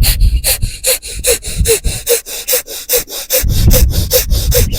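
Kapalbhati pranayama: rapid, forceful exhalations snorted out through the nose in an even rhythm of about two to three a second, growing heavier a little past halfway. It is done after jal neti to blow the leftover salt water out and dry the nostrils.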